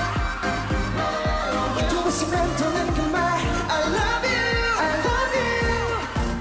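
K-pop song with a male voice singing a slow melody over a steady drum beat, about two beats a second.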